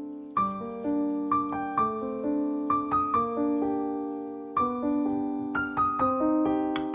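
Piano music: notes and chords struck about twice a second, each ringing and fading.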